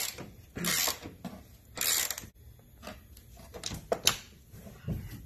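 Hands rubbing and scraping over the kayak's plastic drive well and parts in a few short noisy bursts, followed by several sharp clicks and knocks of parts being handled near the end.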